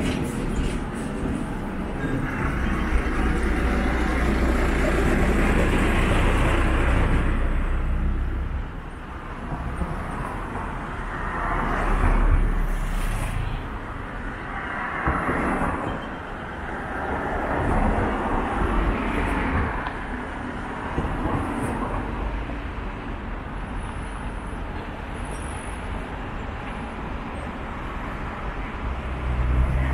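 Road traffic passing through a wide city intersection: cars and a truck go by one after another, each swelling and fading. A low engine rumble runs through the first several seconds, and a few more vehicles pass through the middle.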